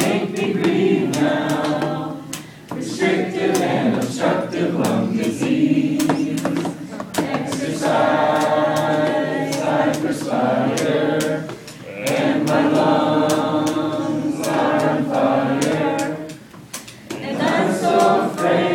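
Voices singing together in a choir-like chant, holding long notes in phrases with short breaks between them.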